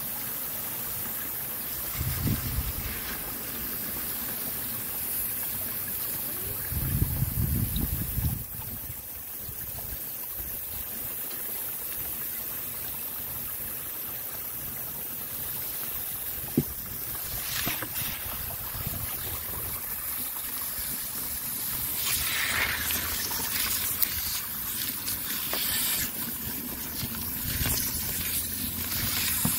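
A garden hose spray nozzle hissing steadily as it sprays water over rough fire opal and dirt in a wooden screen box, washing the mud off the stones. There are brief low rumbles about 2 seconds and 7 seconds in.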